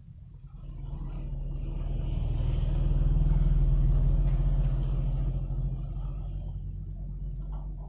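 A motor vehicle's engine running as it passes by: a low rumble that grows louder, peaks about halfway through, and fades away.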